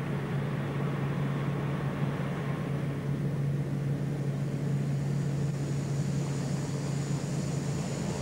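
Propeller airliner engines droning steadily in flight, a constant low hum with a rush of noise over it.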